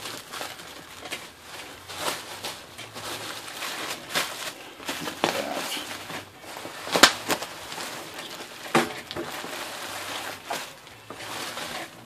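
Plastic bubble wrap crinkling and rustling in irregular crackles as hands fold it and press it into place, with one sharp snap about seven seconds in.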